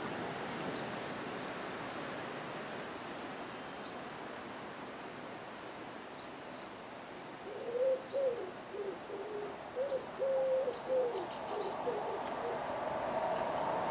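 A pigeon cooing: a phrase of several low, soft coos about halfway through. Near the end, the steady sound of an approaching Class 158 diesel multiple unit grows louder.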